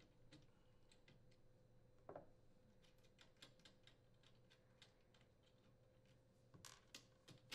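Near silence, with faint scattered clicks and one soft knock from hand tools (Phillips screwdriver and 7mm socket) working the nut and bolt of a dishwasher's door strike clamp.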